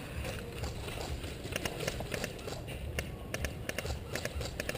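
Footsteps of a person running, with a low rumble and scattered sharp clicks, some in quick groups.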